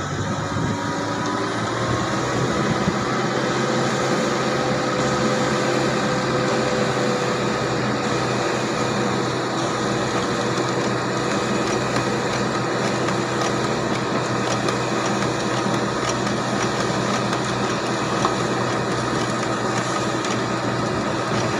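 Fiori self-loading concrete mixer's diesel engine running steadily under load as its hydraulic loader arm lifts a full bucket up to the drum, with a steady whine over the engine noise.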